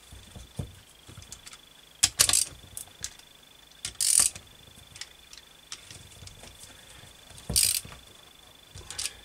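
Scattered metal clinks and knocks of hand tools, a socket and ratchet being set on and lifted off the cylinder head nuts of a small two-stroke engine, over a faint steady high whine.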